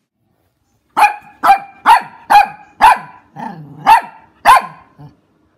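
A small white maltipoo barking: a quick run of about eight sharp barks starting about a second in, with a brief pause near the middle.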